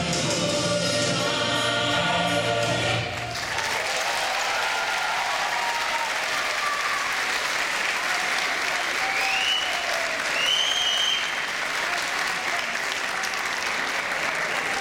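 Recital music ends about three seconds in and audience applause takes over, with a couple of high cheers about ten seconds in.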